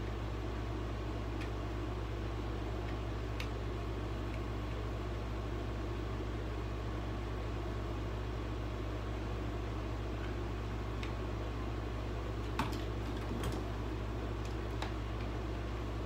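Steady mechanical hum and airy whir from a running appliance, with a couple of faint clicks about three-quarters of the way through.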